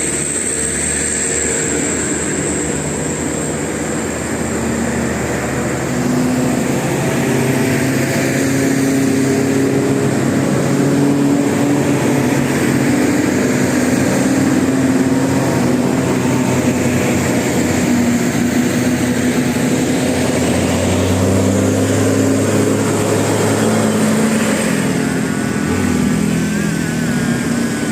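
Bus basuri musical horn playing a slow tune of held notes that step up and down in pitch, over the running noise of bus engines. Near the end a higher wavering tone joins in.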